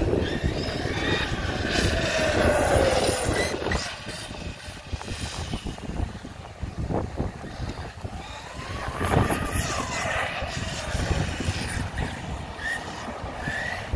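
Brushless motor of an Arrma Kraton 6S RC truck whining as it is throttled and let off: a falling whine a couple of seconds in, a rise and fall past the middle, over the noise of its tyres rolling on pavement.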